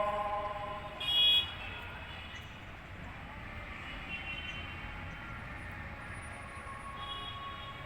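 Background traffic noise with a short, loud horn toot about a second in and a few fainter toots later.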